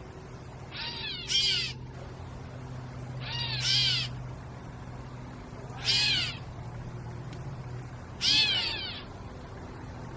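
Gray catbirds giving their cat-like mewing calls, about six short mews, some in quick pairs, every two to three seconds. They are alarm calls: the birds are scolding a person near their nest.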